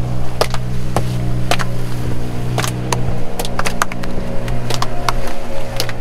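Small fishing boat's motor running steadily under way, with irregular sharp knocks and slaps over it.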